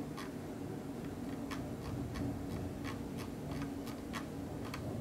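Light, irregular clicks, about two a second, over a steady low hum.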